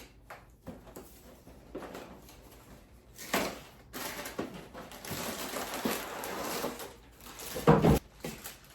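Plastic storage containers and food packaging being handled, with a few sharp knocks and a stretch of rustling in the middle.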